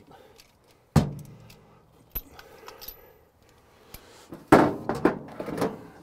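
Metal clinks and rattles of a ratchet and spark-plug socket as a spark plug is worked out of a Ford F100's V8. There is a sharp clink about a second in and a few light ticks, then a louder rattling scrape past the middle.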